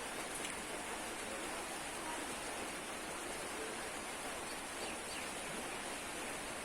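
Steady background hiss with a few faint, brief ticks.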